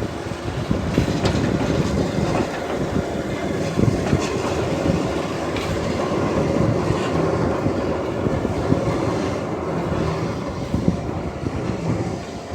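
Keihan Otsu Line train running on the rails: a steady running noise with scattered sharp clicks as the wheels pass over rail joints.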